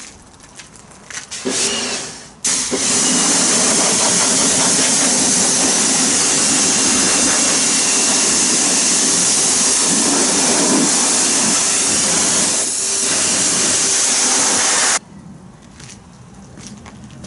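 Kärcher K2 electric pressure washer firing a high-pressure water jet from a short trigger gun at a car wheel. It sounds as a loud, steady hiss of spray with the pump's drone underneath. A short burst comes about a second and a half in, then it runs continuously for about twelve seconds and cuts off suddenly when the trigger is released.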